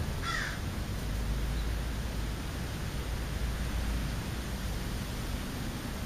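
American crow giving one short caw about half a second in.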